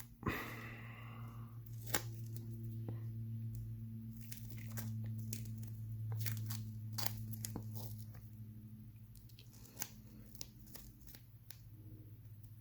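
Soft waterproof adhesive tape being pulled, torn and pressed down by hand, with scattered crackles and small ticks over a steady low hum.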